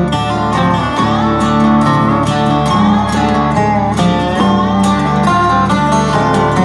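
Background music: a country-style track led by guitar, with a steady beat.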